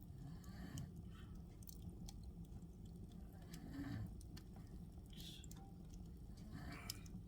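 Soft, slow snoring breaths from a sleeper, a breathy rasp every second or two, with scattered faint crackles of a fire.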